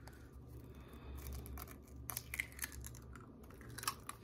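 An egg being handled and cracked over a glass mixing bowl: faint scattered clicks and crackles of shell, with one sharper tap near the end.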